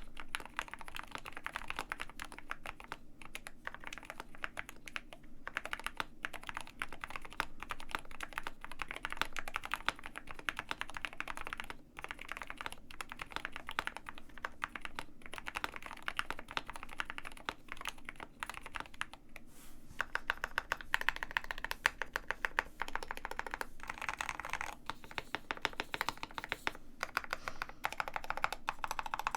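Continuous fast typing on a KBD67 Lite R2 65% custom mechanical keyboard with Gateron Black Ink V2 linear switches, many keystrokes a second, with short pauses about twelve seconds in and again about twenty seconds in.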